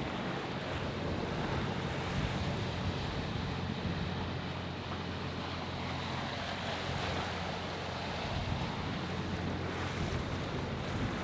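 Steady wind and sea noise on a sailboat under way, with wind rushing over the microphone.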